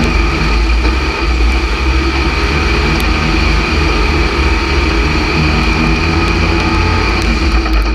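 Stock car's race engine running hard under load, heard from inside the cockpit, mixed with other race cars running close alongside. The driver says this engine is down on power.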